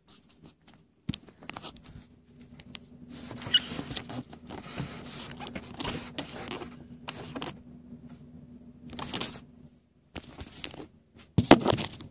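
Scratchy rustling and scraping of things being handled and moved about, with scattered knocks and a faint steady low hum through the middle; a louder burst of rustling comes near the end.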